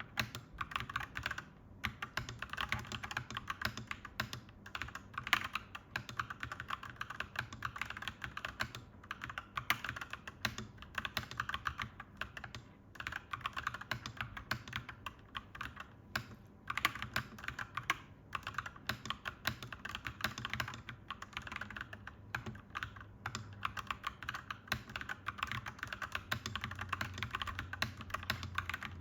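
Fast, continuous typing on a clacky mechanical keyboard, broken by a few short pauses. A low background rumble grows louder near the end.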